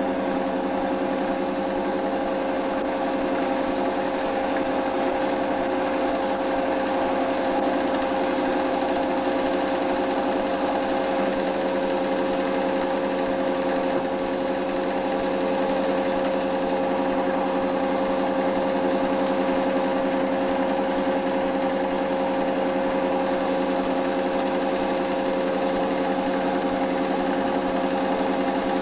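8mm cine film projector running: a steady mechanical whir with a constant hum, unchanging throughout.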